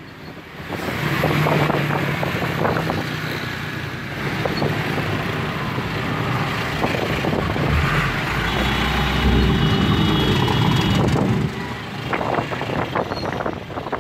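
Diesel container truck passing close on the road, its engine running steadily with a deeper rumble partway through, then dropping away about eleven seconds in.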